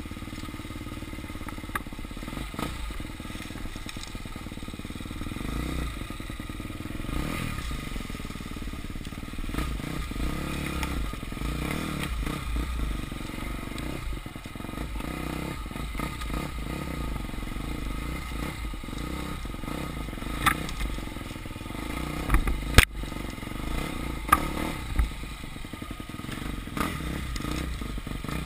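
Enduro motorcycle engine running and revving unevenly as the bike rides over rough ground, with rattling and scraping throughout. A few sharp knocks come about three quarters of the way through, one louder than the rest.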